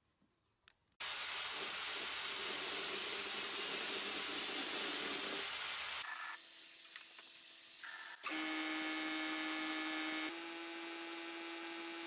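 Powder coating spray gun blowing compressed air and powder: a loud, even hiss starting abruptly about a second in, then, after sudden cuts, a quieter hiss with a steady low hum running under it.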